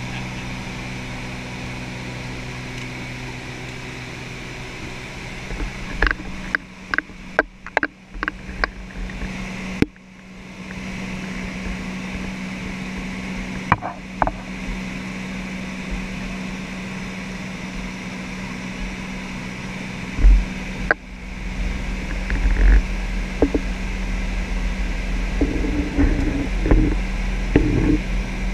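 A light aircraft's engine and propeller heard from inside the cabin: a steady drone with several hum tones. A run of sharp clicks and knocks comes about six to nine seconds in, and a low, uneven rumble grows in the latter part.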